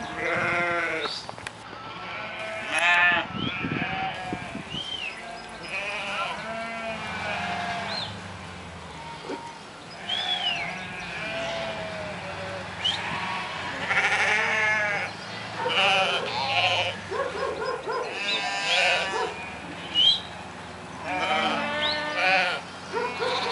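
A large flock of sheep bleating, many overlapping quavering calls one after another, some high and some low.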